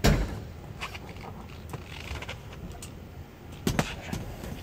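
Handling noise inside a classic car's interior: a loud thump at the start, a few light clicks, and a sharp double click near the end.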